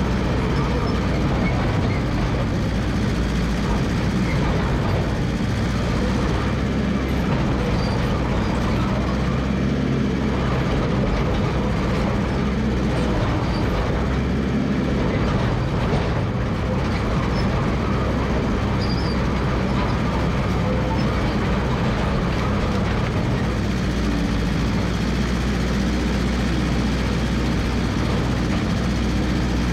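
Massey Ferguson MF 300 crawler dozer running steadily, its engine holding a constant low note.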